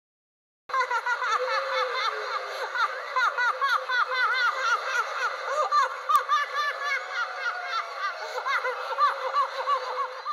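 A group of women laughing together, several voices overlapping in quick, repeated rising-and-falling laughs. The laughter starts abruptly just under a second in and cuts off sharply at the end.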